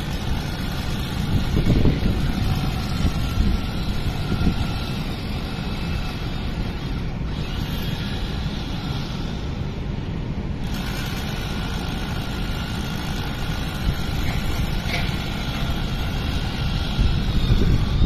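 Wind buffeting a phone microphone in gusts, with faint steady machine tones underneath that drop away for a few seconds in the middle and then come back.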